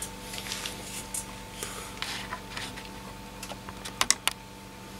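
Small handling sounds of phone parts and hand tools on a repair bench: soft rustles and light taps, with a few sharp clicks about four seconds in, over a steady low electrical hum.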